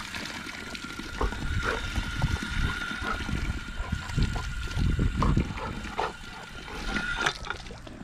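Water running and splashing, used to rinse sand from a dog's mouth, with a steady high whistle that stops near the end.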